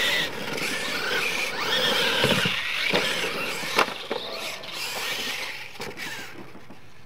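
Losi LMT radio-controlled monster trucks racing on dirt, their brushless electric motors whining up and down in pitch with the throttle. There are a few sharp knocks about three to four seconds in, and the whine fades near the end.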